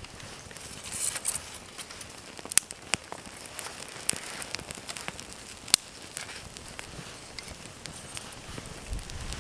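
Small wood campfire crackling, with irregular sharp pops over a faint hiss.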